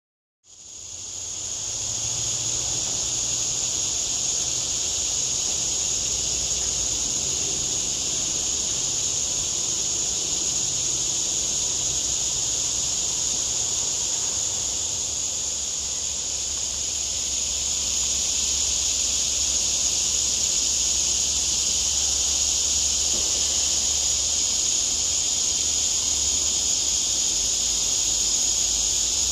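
Steady, high-pitched chorus of insects droning without a break, fading in at the start, with a faint low rumble underneath.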